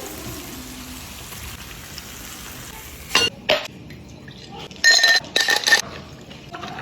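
Kitchen cookware being handled: a steady hiss, then two knocks and a quick run of ringing metallic clinks about five seconds in, like a utensil striking a pot.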